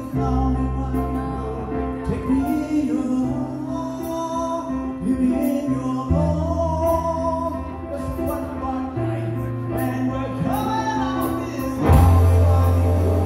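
Live rock band playing through a PA, with electric guitars, bass, cymbals and sung vocals. Near the end the band comes in harder and louder.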